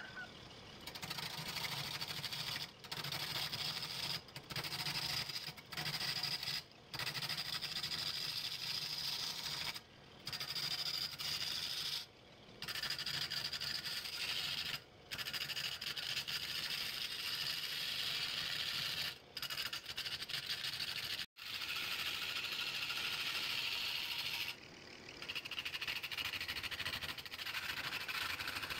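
Wood lathe running while a turning tool cuts the spinning wood: a steady scraping hiss over a low motor hum, cut off briefly about ten times.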